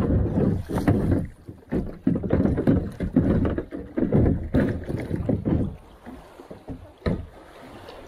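Kayak paddling: the blades of a double-bladed paddle dipping and splashing in a fast river current in uneven strokes, quieter from about six seconds in.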